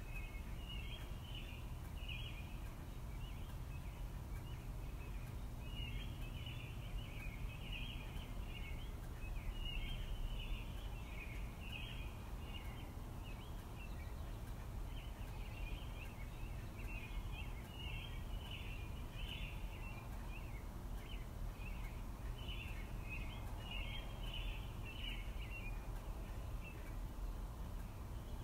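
Faint bird chirping in repeated bouts of quick, high chirps over a steady low hum.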